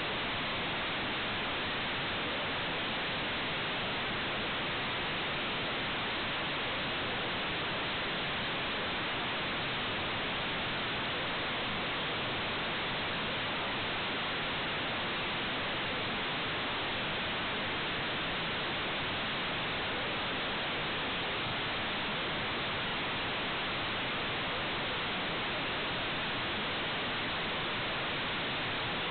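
Steady, even hiss like static, unchanging throughout, with no other sound heard: the noise floor of the recording.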